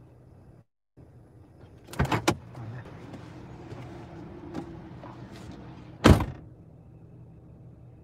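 Car door heard from inside the cabin: a latch click-clack about two seconds in as it opens, then a loud single slam about four seconds later as it shuts, over a steady low hum in the car.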